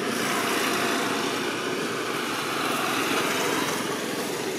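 A steady mechanical drone with no distinct strokes or tones, swelling slightly around the middle.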